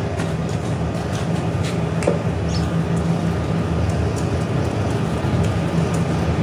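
Steady low hum and rumble of background machinery or traffic, with a few faint clicks of metal parts being handled, one about two seconds in.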